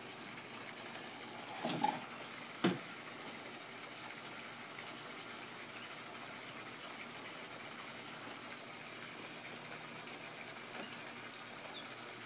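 Nissan 370Z Roadster's power soft-top deck lid closing over the folded roof: a short mechanical noise just under two seconds in, then a single sharp thump as the lid shuts, about a second later. A steady faint hiss runs underneath.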